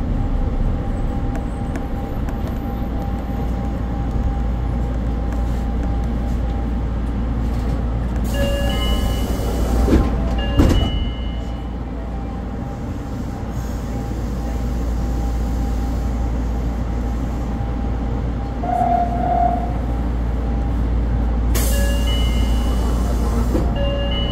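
Nagoya subway Higashiyama Line train running on elevated track, heard from the cab: a steady low rumble with a faint constant tone. About a third of the way in, and again near the end, a brief higher hiss with several ringing tones rises over it.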